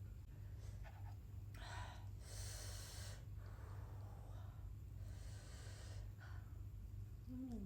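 A person eating fried chicken close to the microphone: several hissing breaths of about a second each, then a short hum of the voice near the end, over a steady low hum.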